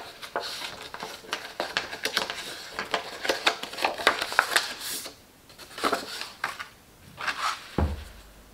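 Stiff cardstock being handled and folded: rustling, sliding and light tapping of the paper on a cutting mat, busiest in the first half. A single soft knock comes near the end.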